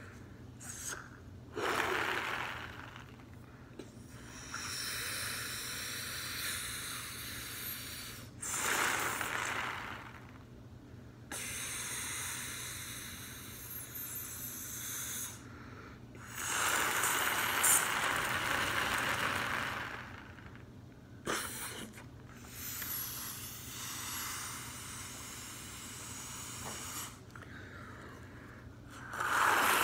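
Latex balloon being blown up by mouth: several long breaths hiss into it, each lasting a few seconds, with short quiet pauses between them to inhale.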